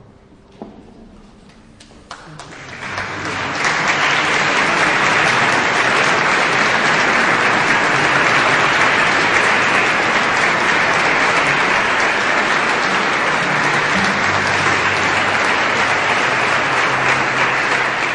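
Concert audience applauding. The clapping begins about two seconds in, swells to full within a second or two and then holds steady.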